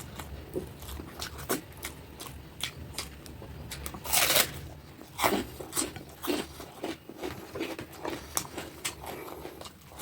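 Close-miked eating sounds: a person chewing and smacking on a mouthful of fish curry and rice, with many short wet clicks and a louder, longer mouth sound about four seconds in.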